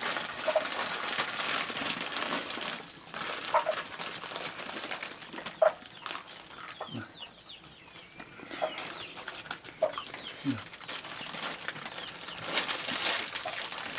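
Food frying in a wok of oil over a wood fire: a steady sizzle with crackling. Chickens cluck briefly several times.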